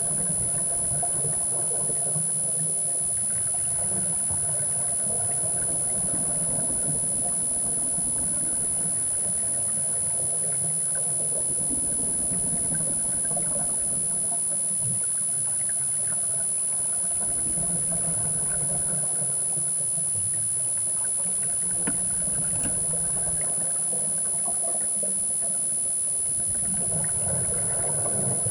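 Underwater ambience heard through a diving camera's housing: a steady, engine-like low hum and hiss that swells a little now and then, over a constant high-pitched tone.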